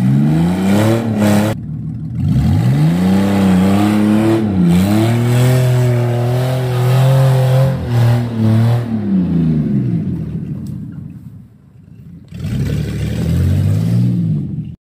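A 2000 Ford Ranger's engine being thrashed, revved hard again and again. The pitch climbs high, holds, dips and climbs again, with a brief cut about a second and a half in. It sinks to a lull around ten seconds in, then gives one last rev near the end that is cut off abruptly.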